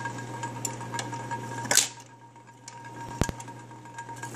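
Magnavox record changer cycling with a steady motor hum and mechanical clatter as it drops the next 45 rpm record from the spindle and swings the tone arm onto it, with one loud clack about two seconds in and a sharp click just after three seconds.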